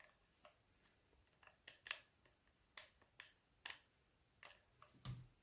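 Near silence broken by about a dozen faint, irregular small clicks and taps from hot-glue work: a hot glue gun being handled and coffee beans pressed one by one onto a plastic lid.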